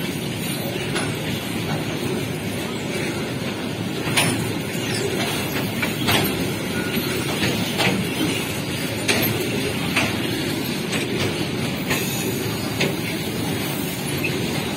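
Loaded coal wagons of a long freight train rolling past: a steady rumble of steel wheels on the rails, with sharp clacks every second or two as the wheel sets pass.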